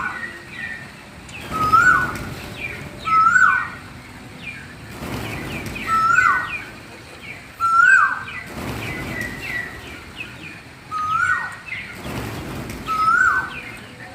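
Parrots calling: one repeated whistled call that rises and then drops sharply, about every second and a half, with quicker higher chirps between.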